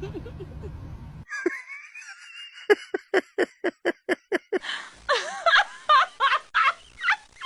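A high, wavering squeal about a second in, then rapid rhythmic laughter, about five pulses a second, breaking into looser bursts of laughing in the second half.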